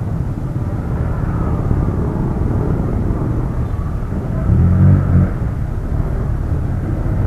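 Heavy wind noise buffeting a helmet-mounted action camera microphone on a moving motorcycle, with the helmet visor open: a dense, steady low rumble that swells louder for about a second near the middle.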